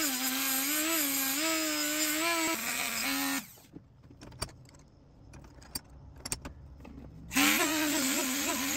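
Rotary tool fitted with a small wire wheel brush scrubbing the bare metal liners of a pocket knife frame: a high motor whine over a harsh scratching hiss, its pitch wavering as the wheel is pressed on. It cuts off about three and a half seconds in, leaving a few light clicks, and starts up again about four seconds later.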